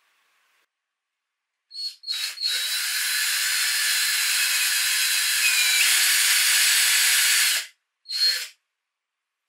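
Power drill with an 8 mm bit boring a dowel hole into a rubberwood panel: two short trigger blips, then a steady run of about five seconds with a high whine, then one more short burst.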